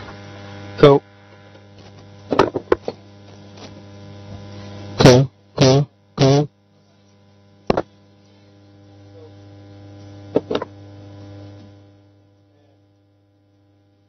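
Steady electrical mains hum from the hall's sound system, broken by several short, loud, pitched bursts over the speakers. The hum fades away about twelve seconds in.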